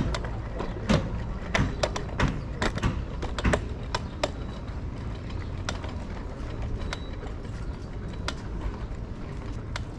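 E-scooter rattling and clicking as it rides over uneven paving: irregular sharp knocks over a steady low rumble, thick for the first few seconds and then sparser.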